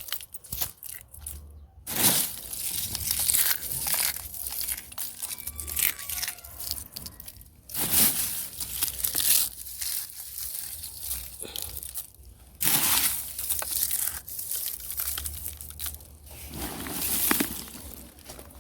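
Eggshells being crushed by hand, crunching and crackling in uneven bursts, with louder surges about every four to five seconds.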